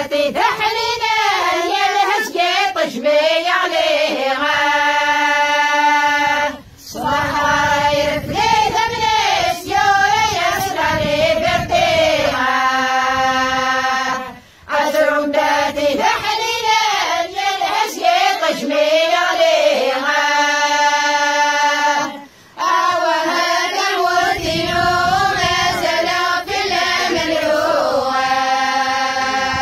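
A group of women and girls singing a Kabyle song in unison, with no instruments. The phrases are about seven or eight seconds long, each ending on a long held note, with a short pause for breath between them.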